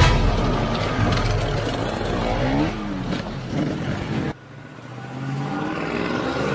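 Enduro dirt bike engines revving hard as riders pass, with the pitch climbing and dropping through gear changes. A little over four seconds in, it cuts abruptly to a second bike that grows louder as it approaches.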